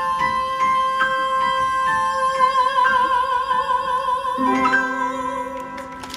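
A woman singing live with piano and band accompaniment, holding a long final note with vibrato as the song closes on a last chord that fades away near the end.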